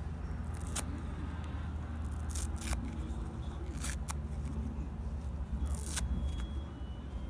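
Fingers tearing small pieces of foam sponge: a soft crackling tear broken by about five sharp snaps as the foam gives way.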